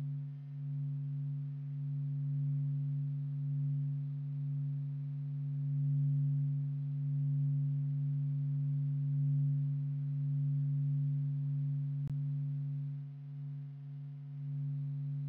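Steady low electronic drone from a space data sonification, a deep hum with a fainter overtone above it, slowly swelling and easing in loudness. One short click near the end.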